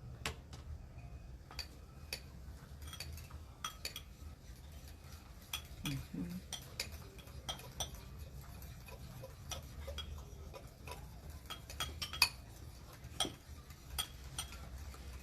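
Spoons and forks clinking and tapping against mixing bowls as pancake batter is stirred: irregular light clicks, the sharpest about twelve seconds in.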